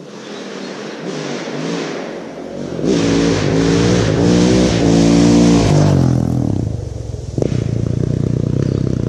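Single-cylinder dirt bike engine revving hard and accelerating, its pitch climbing and dropping several times through gear changes. Near the end it settles to a lower, even run.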